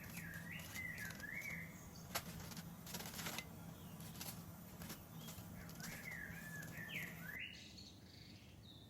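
A small bird chirping in two short warbling phrases, one at the start and one about six seconds in, with a few sharp clicks and knocks between them. A steady low hum underneath stops suddenly about seven seconds in.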